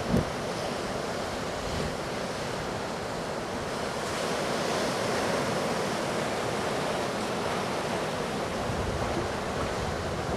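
Hurricane-driven ocean surf breaking steadily, with wind buffeting the microphone and one brief low bump of wind on the microphone at the very start.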